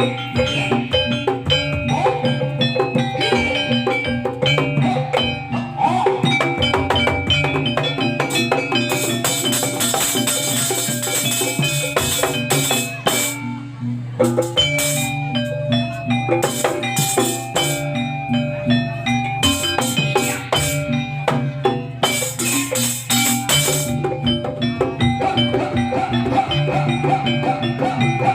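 Live jaranan music: struck metal-bar instruments ring a repeating melody over drumming and gongs, with two stretches of bright clashing in the middle.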